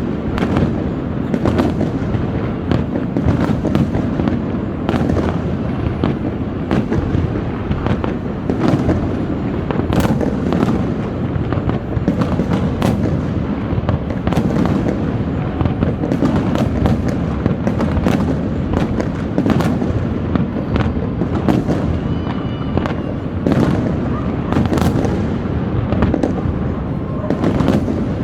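Aerial fireworks going off in a dense, continuous barrage: many sharp bangs and crackles over a steady low booming.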